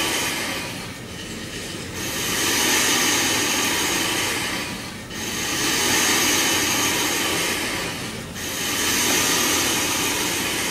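A rushing, rattling noise with faint steady high tones, swelling and dipping in waves about every three to four seconds.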